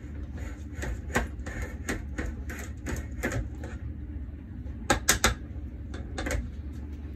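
Small metal offset spatula scraping through cream and clicking against the metal springform pan as the filling is smoothed over the biscuit base: a run of short scrapes, then a few sharper clicks about five seconds in, over a low steady hum.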